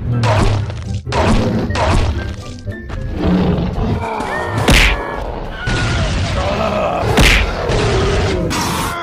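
Cartoon soundtrack: background music with fight sound effects, including two loud whacks, one about halfway through and one a couple of seconds later.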